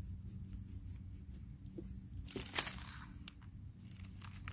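Knife cutting through a soft young resinous polypore (Ischnoderma resinosum) to take it off a log: one short rasping cut about two seconds in, with a few small clicks and rustles after it.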